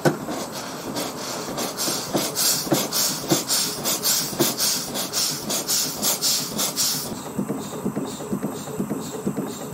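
1916 Ransomes, Sims & Jefferies single-cylinder traction engine running with the regulator open: a rhythmic steam beat, about three a second, under loud steam hissing. The hiss drops away about seven seconds in, leaving the engine's steady beat.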